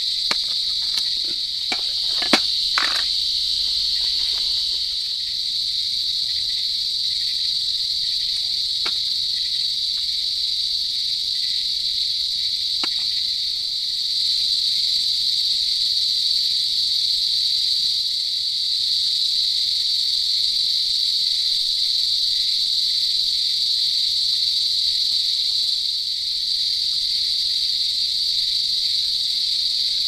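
Dense insect chorus: a steady, high-pitched shrill that swells slightly about halfway through. A few sharp taps in the first three seconds as a lantern and gear are handled on a metal camp table.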